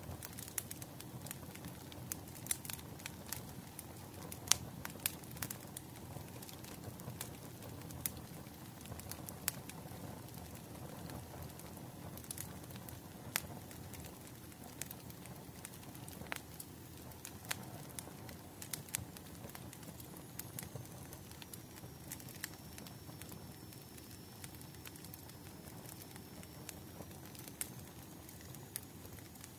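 Firewood burning: a steady low rumble of flames with frequent irregular sharp crackles and pops.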